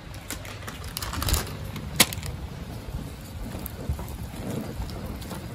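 Outdoor propane burner running steadily under an aluminium saucepan, while a wooden spoon stirs shredded parmesan into a spinach cream sauce, scraping and clicking against the pan, with one sharp knock about two seconds in.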